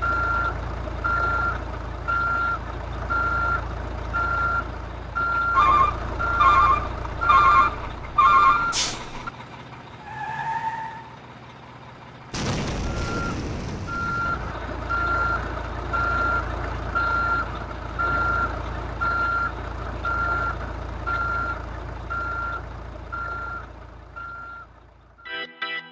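RC dump truck's sound module playing reverse-warning beeps, about one a second, over a steady low engine hum. Partway through come four louder two-tone beeps, then the hum drops out for a few seconds before a sharp click and the beeping and hum start again.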